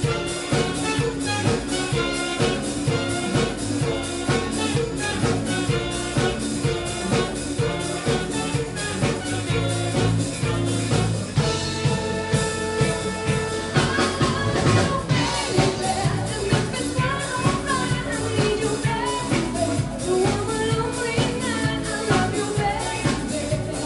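Live band playing an up-tempo number: drum kit and congas keep a steady beat under guitar, keyboard and horns. About halfway through a wavering lead melody comes in over the band.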